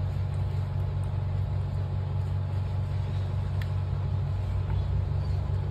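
A steady low hum, with a faint clink of a steel serving spoon against a plate about three and a half seconds in.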